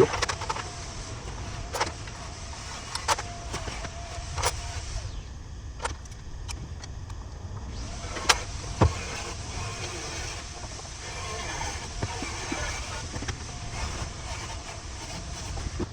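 Scattered sharp metal knocks and clinks, about half a dozen, from tools and parts being handled during hands-on work on the milling machine. They sound over a steady low hum, and the loudest pair of knocks comes a little past the middle.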